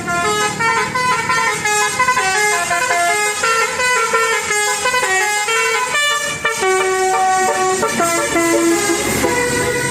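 Bus telolet horn, a Basuri multi-tone air horn, playing a fast tune of held notes that step up and down, with a short break about six and a half seconds in.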